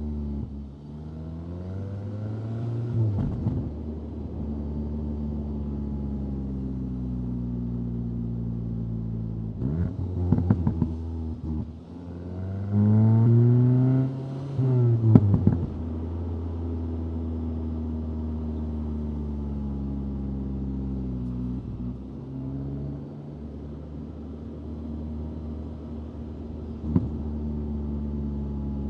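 2025 VW Golf GTI 8.5's turbocharged 2.0-litre four-cylinder engine while driving: a steady drone at cruise, broken by several pulls where the engine pitch climbs and then falls, the loudest about halfway through. A single sharp click near the end.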